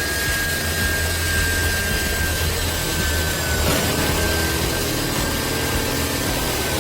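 Electric drill motor running steadily under load, with a high whine that sags slightly in pitch over a low hum, and a brief dip about halfway through.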